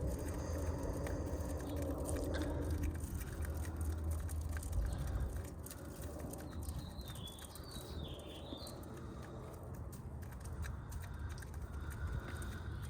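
Chickens pecking and eating, a scatter of small sharp beak taps, with a wavering high chirping call about seven seconds in.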